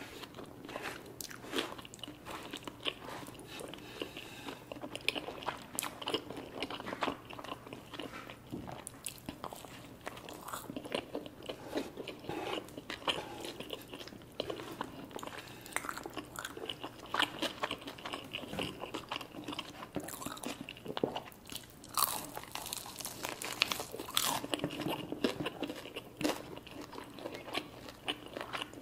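Close-miked eating sounds from a meal of chicken wings and creamy Alfredo pasta: biting and chewing with many irregular crisp crunches, no words.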